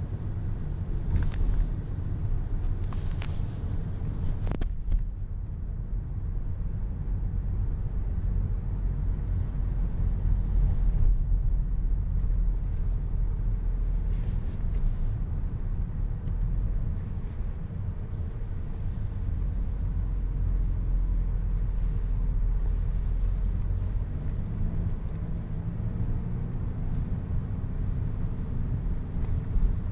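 A car driving, its engine and tyres making a steady low rumble, with a few brief hisses in the first few seconds. Near the end the engine note rises a little.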